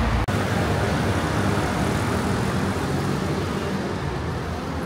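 Road traffic noise: a steady wash of passing cars, with a brief sudden gap about a third of a second in.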